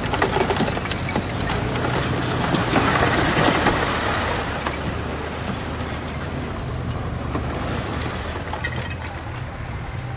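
Diesel engine of heavy earthmoving machinery running steadily, with clattering and scraping that grows louder a few seconds in and then eases off.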